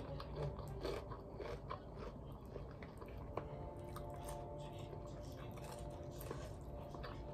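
A person chewing and biting crunchy food close to the microphone: irregular crunches and mouth clicks.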